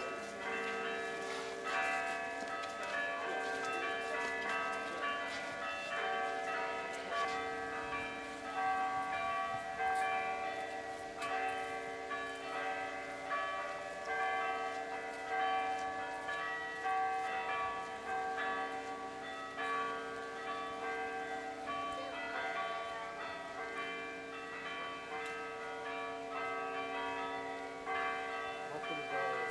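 Church bells ringing continuously, many notes struck in turn and overlapping as they ring on.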